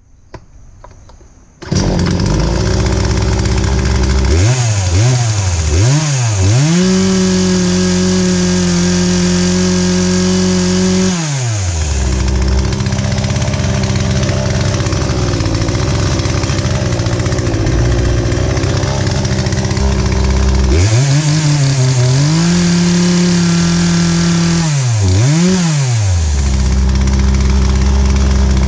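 Poulan Pro PP4218A two-stroke chainsaw, its carburetor freshly rebuilt, catching about two seconds in and settling to idle. It is then blipped a couple of times, held at high revs for about four seconds and dropped back to idle, with more quick revs near the end, running cleanly on the throttle.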